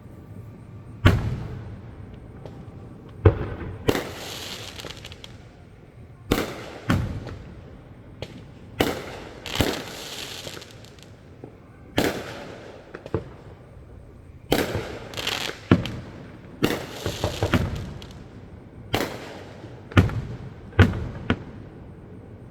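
Fireworks display: a run of aerial shell bursts, about fifteen bangs at irregular intervals, each fading off in an echoing tail. A few of the bursts are followed by a hissing crackle.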